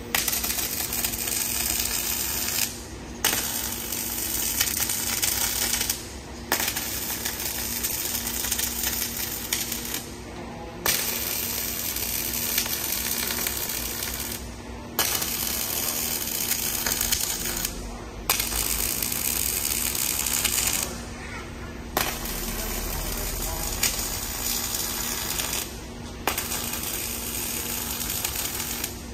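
Robot MIG welding arc crackling on 4 mm square pipe, in about eight separate welds of three to four seconds each with short breaks between as the torch moves to the next joint. A steady low hum runs underneath.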